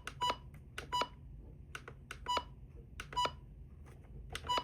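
Maxx Digital weather radio's button beeps: about five short, single-pitch beeps, each with a button click, at irregular intervals as its menu buttons are pressed, with a few clicks between.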